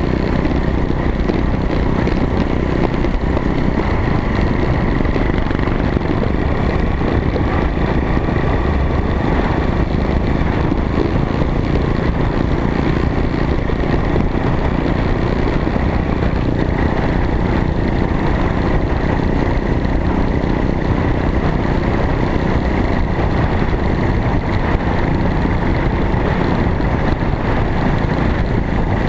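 Small off-road vehicle engine running steadily, mixed with heavy rumbling noise. The sound is even throughout, with no clear revs or stops.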